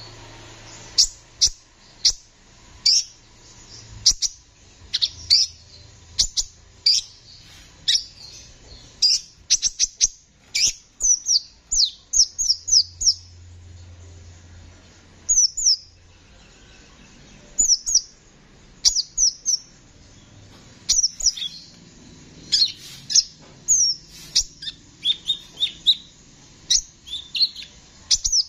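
Male sunbird (kolibri ninja) singing in a rapid string of sharp, high chirps and quick trilled phrases, with a short pause about halfway through.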